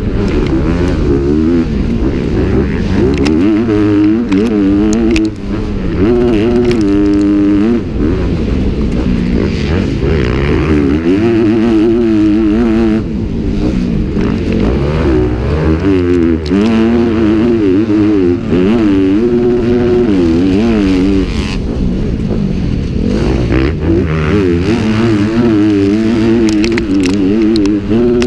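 Motocross dirt bike engines revving hard, rising and falling in pitch again and again as the throttle is worked and the gears are shifted through.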